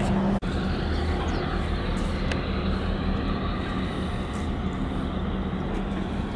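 A steady low engine drone with a constant hum, broken by a brief dropout about half a second in.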